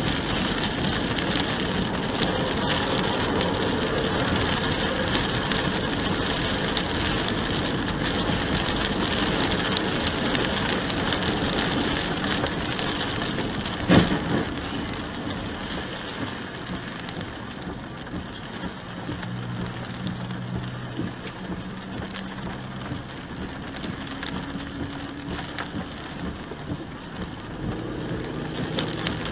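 Rain and tyre noise on a wet road, heard from inside a moving car as a steady hiss. A single sharp knock comes about halfway through. After it the hiss drops lower and a faint low hum shows through.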